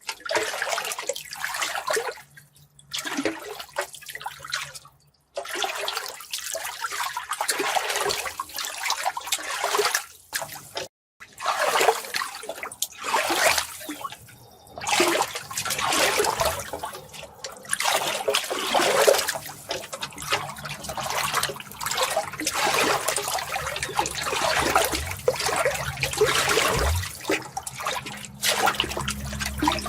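Running water splashing and trickling in irregular surges, breaking off briefly a few times.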